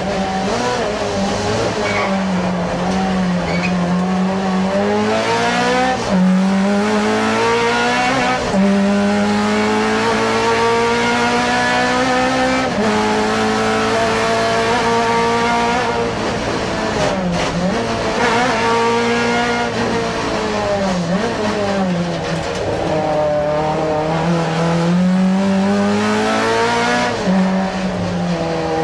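Rally car engine heard from inside the cabin, pulling hard: the revs climb and drop sharply several times as it shifts gear and lifts for bends.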